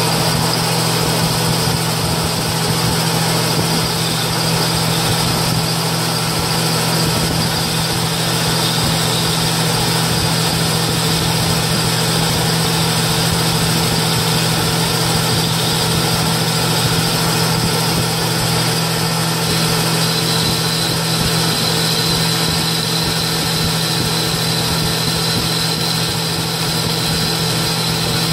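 Metal lathe running steadily with a steady hum while an insert cutting tool takes a turning cut on a steel shaft. A faint high whine comes in about two-thirds of the way through.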